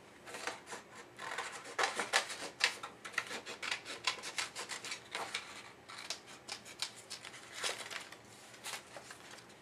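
Small scissors snipping through a sheet of scrapbook paper to cut out a rounded shape, in many quick irregular snips mixed with paper rustling.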